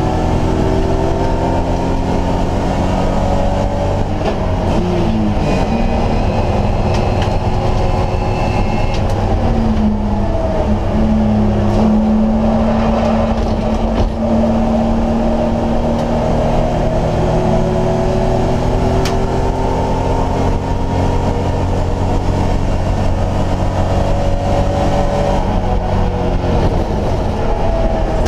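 BMW E30 race car's engine running hard at racing speed, heard from inside the stripped, roll-caged cockpit. The engine note holds steady, with a few short dips and recoveries in pitch: about four to five seconds in, around ten seconds, and near the end.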